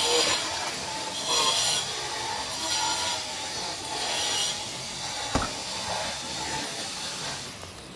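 Pry bar scraping and prying under asphalt ridge-cap shingles to peel them loose, in a few scraping strokes, with a single sharp knock a little past the middle.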